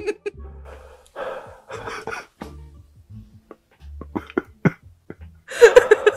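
A person breathing hard and gasping, with a few mouth clicks. A loud burst of laughter comes near the end.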